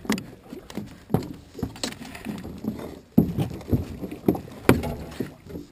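A string of irregular knocks and clunks, several a second, in an aluminum fishing boat as rod and gear are handled while a fish is brought to the boatside.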